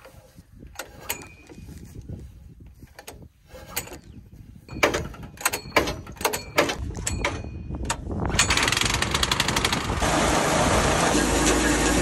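Grain auger's small petrol engine being pull-started by its recoil cord, a run of sharp yanks and clatter, then catching about eight seconds in and running steadily, louder from about ten seconds in. The electric start is dead for lack of a battery.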